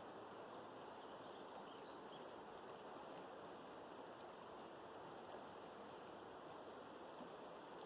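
Faint, steady rush of a river flowing, with a few faint high chirps.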